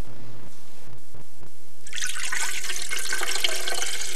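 About a cup of water poured from a glass measuring cup into a bread maker's metal bread pan, a splashing stream that starts about two seconds in.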